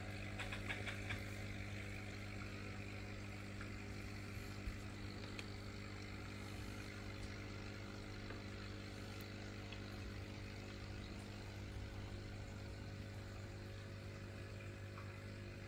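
Steady electric hum of an aquarium air pump driving sponge filters, with a soft fizz of bubbles rising through the water. A few light clicks about half a second to a second in.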